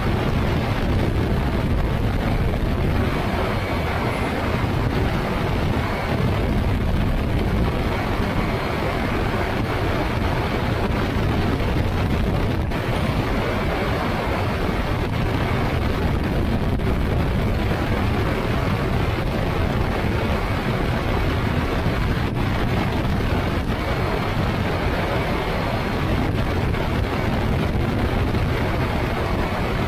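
Weight-shift microlight trike's pusher engine and propeller running steadily in cruising flight, with wind rushing over the wing-mounted microphone.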